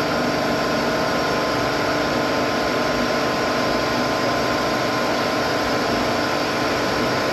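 Kärcher hot-water pressure washer running steadily, its motor, pump and oil burner going, while its water jet sprays into a plastic barrel that is filling.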